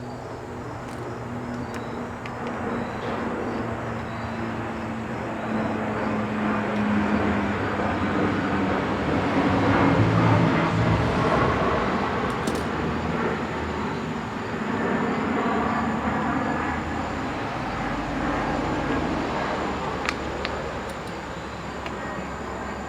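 A passing engine: a low, rushing motor noise that builds to a peak about ten seconds in and then slowly fades away.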